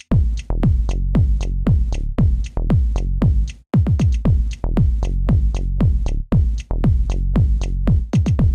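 Electronic dance music with a fast, steady kick-drum beat over a low bass line. It cuts out briefly about three and a half seconds in, then comes back.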